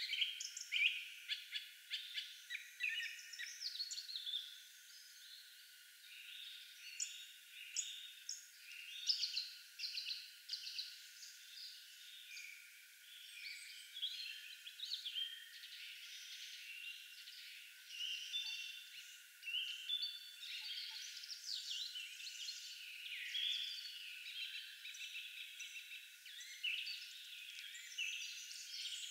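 Small songbirds chirping and singing, many short calls and quick whistled notes overlapping, sharpest and loudest in the first several seconds. Only the high pitches are present, giving a thin sound with no low end.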